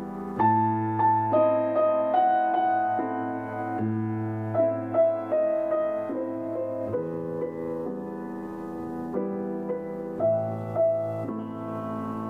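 Slow instrumental piano music: a gentle melody of struck, sustained notes over held chords and low bass notes.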